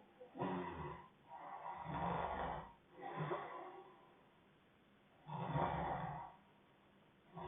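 A man snoring in his sleep, breath after breath, with a pause of about two seconds before the last snore.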